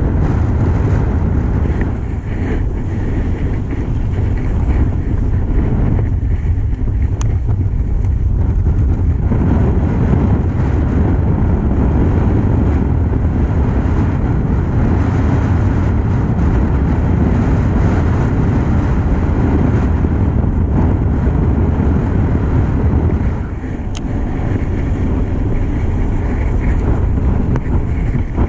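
Wind buffeting the microphone: a loud, steady low rumble with a hiss above it, easing briefly near the end.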